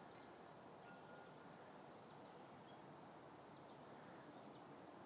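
Near silence: faint, steady outdoor background hiss, with a few faint, short, high bird chirps about three seconds in and again near the end.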